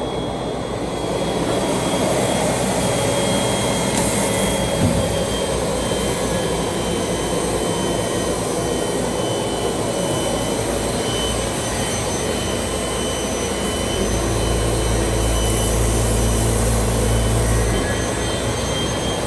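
ROBA Fentech profile sanding machine running, sanding two window profiles fed side by side: a steady, loud mechanical noise. A deeper rumble joins for about four seconds near the end.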